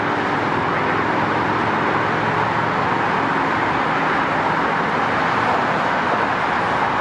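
Steady road traffic noise, an even wash of sound, with a faint low hum in the first second or so that fades.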